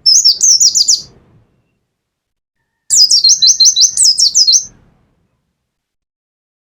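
Pleci (white-eye) songbird singing in two quick bursts of high, rapidly repeated falling notes, the first about a second long and the second about two seconds long after a short pause: the fast burst style bird-keepers call 'nembak'.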